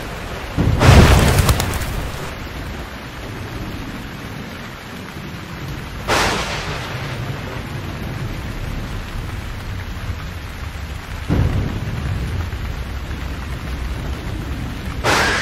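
Thunderstorm: a steady hiss of rain with four claps of thunder about five seconds apart, the loudest about a second in and the last right at the end.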